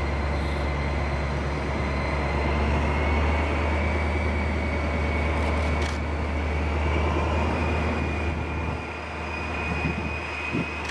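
Diesel locomotive engine running steadily: a deep drone with a thin whine above it that creeps slightly higher in pitch. It is a real recording of an SNCF BB 67400 diesel, dubbed over the model train. The drone eases a little near the end.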